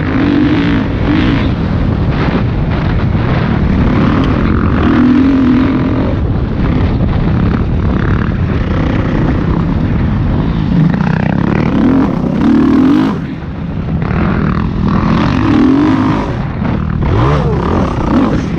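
Dirt bike engine running hard under the rider, its revs repeatedly rising and falling, with a brief lift off the throttle about two-thirds of the way through.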